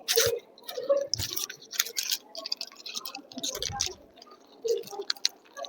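A string of irregular small clicks and taps, with brief hissy rustles between them.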